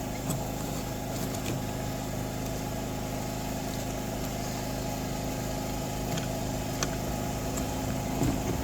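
An engine idling steadily, with a few faint clicks.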